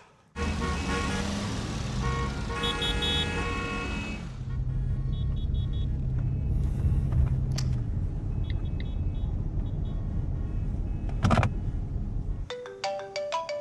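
Loud street traffic with car engines that cuts off abruptly near the end. A phone's ringtone then starts.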